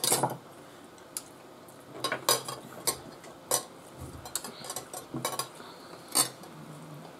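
Forks clinking and scraping against china plates during a meal, a scatter of short, sharp clinks a second or two apart.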